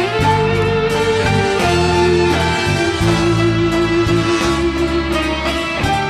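Instrumental introduction of a slow song: held melody notes over long, sustained bass notes, with no singing yet.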